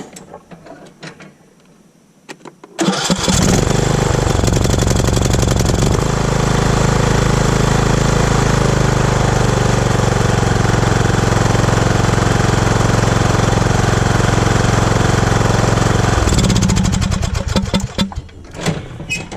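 Lawn mower engine starting about three seconds in and running steadily, then shut off and winding down near the end. It now runs after a fault in the carburetor's fuel shutoff solenoid was dealt with.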